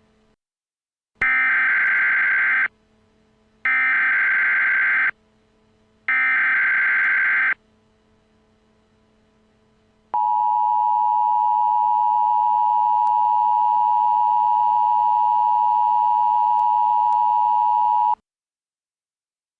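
Emergency Alert System tones: three short header bursts of about a second and a half each, then the steady two-tone attention signal held for about eight seconds before cutting off sharply. They are imitation tones, not valid EAS codes.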